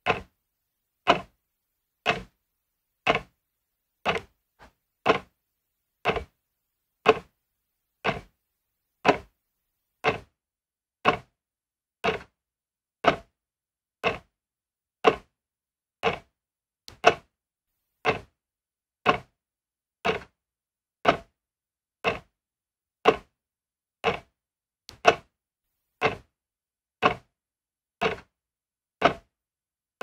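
A clock ticking steadily, one sharp tick each second, with silence between the ticks.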